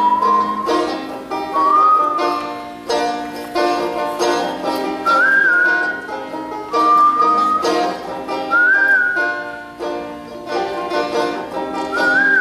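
Resonator banjo fingerpicked in a rolling pattern, with a whistled melody over it. The whistle comes in short phrases every couple of seconds, each sliding up into its note.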